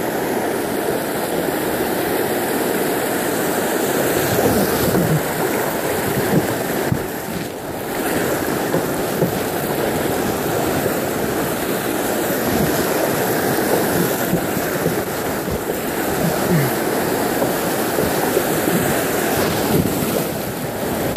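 Steady rush of river whitewater over a shallow rapid, with water splashing around the kayak's bow.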